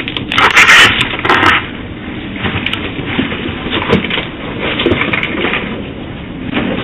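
Harsh, irregular clattering and scuffling through a doorbell camera's narrow-band microphone, loudest in the first second and a half.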